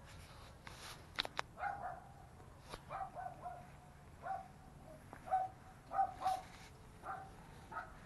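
A dog barking: a string of short barks, coming every half second to a second.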